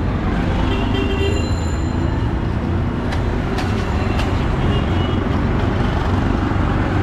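Steady city street traffic, with motor vehicle engines running close by. A brief high tone comes about a second in, and a few sharp clicks come around the middle.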